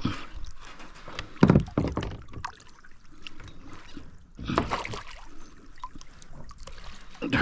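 Water splashing and knocks in a small fishing boat as a fish is landed, loudest about a second and a half in and again around five seconds in.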